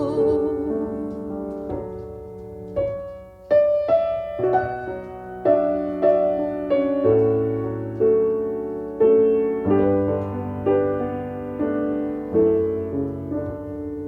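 Solo piano playing a slow, tender instrumental interlude in a ballad. Notes and chords are struck roughly once a second, each ringing and fading before the next.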